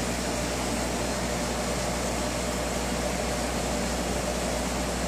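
Steady hiss and low hum of running aquarium equipment, with air bubbling from an air stone in the tank.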